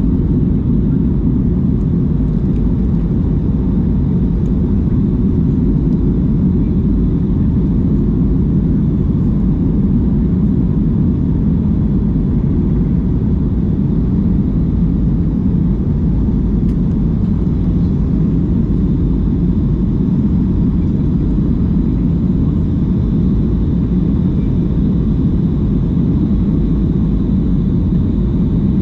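Steady low rumble of a Boeing 737 MAX 8 in its climb after takeoff, heard inside the cabin: the CFM LEAP-1B engines at climb power and the rush of air over the fuselage, with a faint high whine on top.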